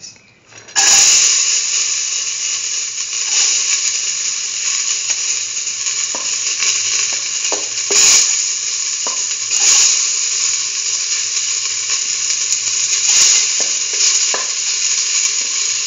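Diced chayote sizzling in hot ghee in a metal pan. The hiss starts suddenly about a second in, as the pieces hit the fat, and holds steady. A few light knocks of the spatula sound as it pushes more pieces off the plate.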